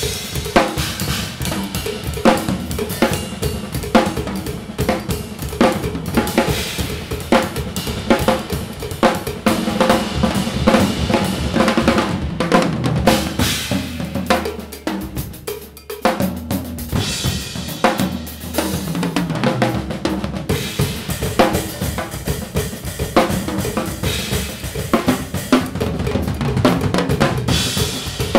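Two drum kits played at once in a free improvised duet: rapid snare, tom and bass drum strokes with crashing and ringing cymbals and hi-hat. The playing thins out and drops in level briefly about halfway through, then builds back up.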